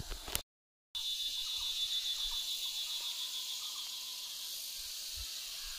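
Insects trilling steadily in one high, even band, strongest for the first couple of seconds and then easing a little. The sound drops out completely for about half a second near the start.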